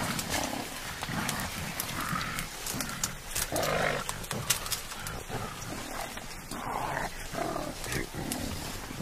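Mountain gorillas making a series of short grunts and calls, with many sharp clicks and crackles between them.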